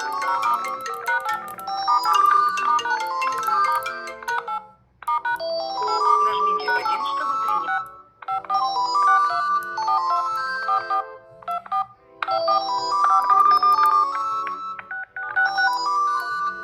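Smartphone incoming-call ringtone playing a bright melody of short notes over a steady low beat, the phrase repeating every three to four seconds with a brief break between repeats.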